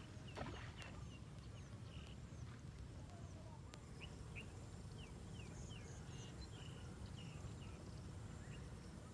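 Small birds chirping in many short separate calls over a steady low rumble, with a brief louder noise about half a second in.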